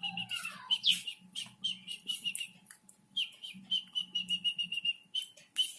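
A small bird chirping in quick runs of short, evenly repeated high notes, about five a second, with a short pause in the middle.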